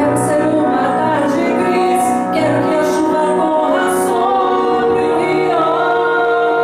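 A woman singing a Portuguese-language pop ballad into a handheld microphone over instrumental accompaniment, her voice coming in right after an instrumental passage.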